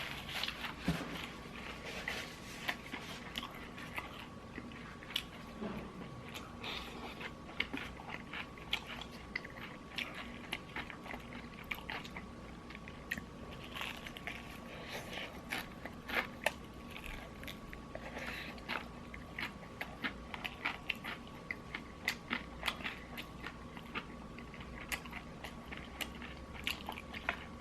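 Close-up crunching as a person bites into and chews crispy fried chicken: many irregular sharp crackles and crunches. A faint steady high hum sits underneath.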